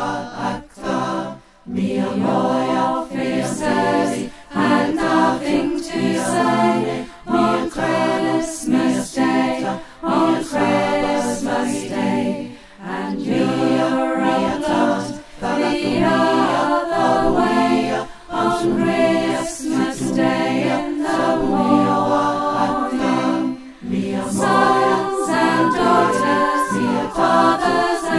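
Choir singing a cappella, many voices together in held notes, in phrases broken by short pauses every second or two.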